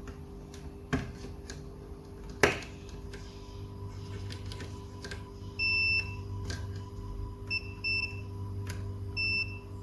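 Multimeter continuity beeper sounding in four short beeps in the second half as the probes are touched to points on a laptop motherboard, checking the 3.3 V line for a short. Sharp probe taps come before them, the loudest about two and a half seconds in, over a steady low hum.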